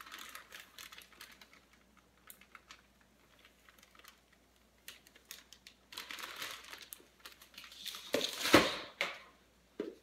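Clear plastic zip-top bag crinkling as it is handled, in two spells with scattered small clicks between them. Near the end, a short louder thump.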